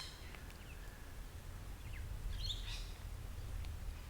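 Wild birds calling: a few short, high chirps, the clearest about two and a half seconds in, over a low, steady background rumble.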